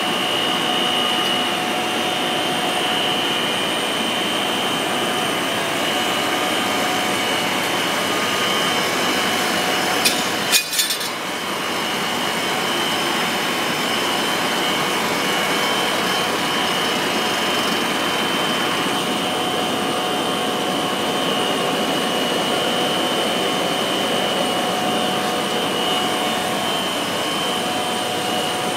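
PVC foam board extrusion line running: a steady, dense machinery noise with a steady high whine over it. A short clatter of sharp clicks about ten seconds in.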